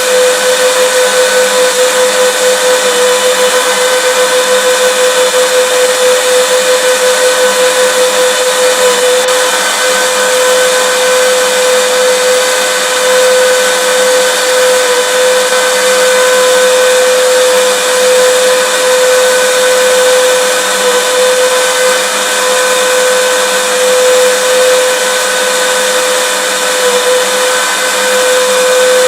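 Vacuum cleaner running steadily: a constant motor whine over a rushing hiss of air.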